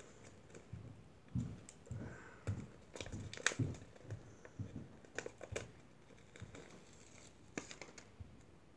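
Faint scattered clicks and soft knocks of small plastic toy pieces being handled and fitted together.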